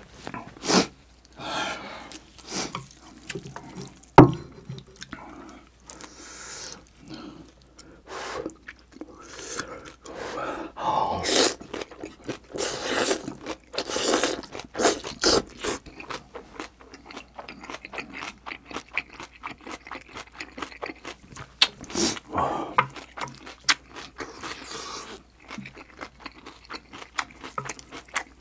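Close-miked eating sounds: chewy jjolmyeon noodles slurped up and chewed, with irregular clicks and scrapes of chopsticks on the plate. A denser run of slurping comes in the middle.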